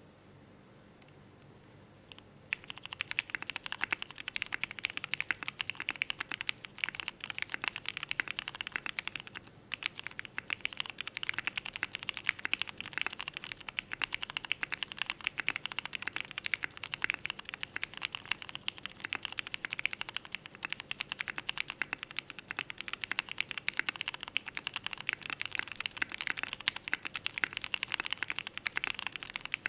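Continuous fast typing on an ai03 Andromeda custom mechanical keyboard with vintage 1996 Cherry MX Black linear switches, an aluminium plate, DCS keycaps and Cherry clip-in stabilizers. Dense keystrokes start about two seconds in and break off briefly about a third of the way through.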